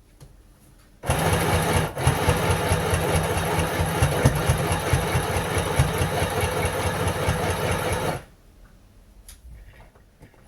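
Electric sewing machine stitching a straight test seam, its needle going up and down in a fast, steady rhythm; it starts about a second in, breaks off very briefly, and stops a couple of seconds before the end. The upper thread tension has just been raised to 5 after it seemed a little tight.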